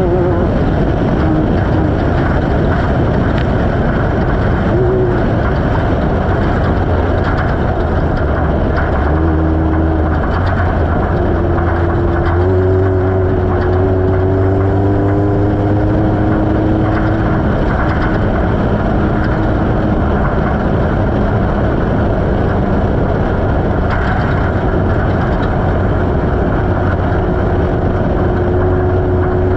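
Off-road race vehicle's engine running under load at speed, with a steady loud rush of noise beneath it. Its pitch comes and goes, climbing in steps through the middle and settling again near the end as the throttle and gears change.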